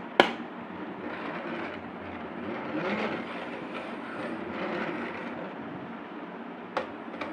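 A school-bus-shaped pencil case's lid snaps shut with a sharp click, then its small plastic wheels roll across a wooden floor with a steady rumbling rattle that swells about three seconds in. A second, softer click comes near the end.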